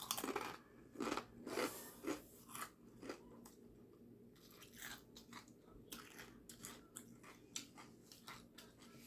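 Close-up biting and chewing of a grinder sandwich. It opens with a loud bite, then crunchy chews about twice a second, which give way after about three seconds to softer wet chewing and mouth clicks.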